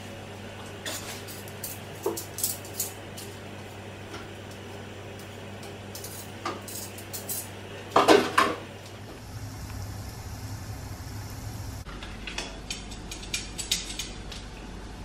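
Kitchen utensils and cookware clinking and clattering: a scatter of light clicks, a louder clatter about eight seconds in, and more clicks near the end, over a steady low hum.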